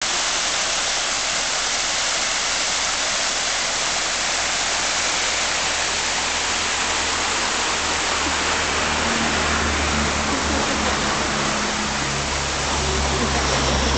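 Small stepped stone waterfall splashing into a pond: a loud, steady rush of falling water. A low steady hum joins it about halfway through.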